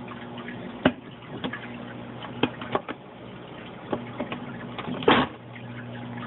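Rio 2100 submersible sump return pump buzzing steadily under a trickle of water from the wet-dry filter, with scattered drips and ticks and a louder knock about five seconds in.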